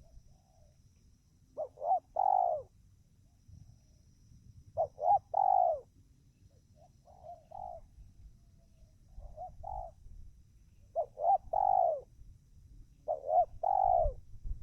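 Spotted dove cooing: six phrases about two to three seconds apart, each two short notes followed by a longer falling coo, with the middle two phrases fainter.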